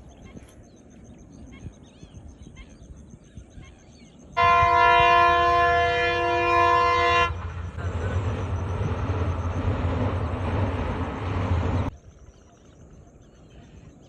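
A loud, steady horn blast of several tones at once, lasting about three seconds, then a loud rushing rumble for about four and a half seconds that cuts off suddenly. Before and after, faint chirps over a thin steady high whine.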